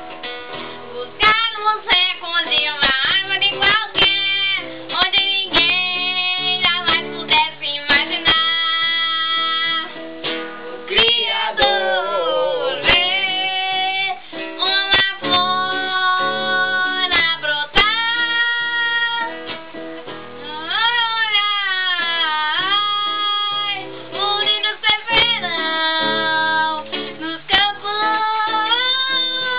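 Acoustic guitar strummed as accompaniment while several voices sing together, the sung notes sliding and wavering in pitch.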